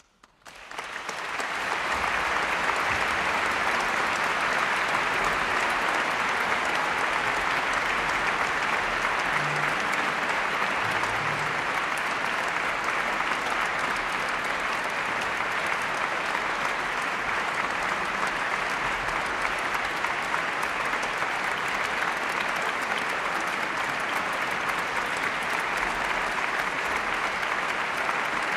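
Concert-hall audience applauding steadily, swelling in at the start right after the music stops: applause at the end of a live orchestral and vocal performance.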